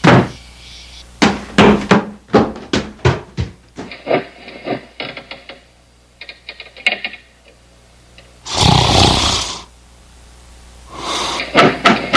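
Repeated knocking on a wooden door, in several quick runs of raps, with one loud rasping burst lasting about a second between them.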